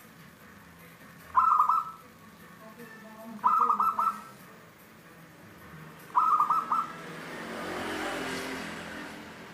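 Zebra dove (perkutut) cooing: three short phrases of quick rolling notes, about two to three seconds apart. Near the end a broad rush of noise swells and fades.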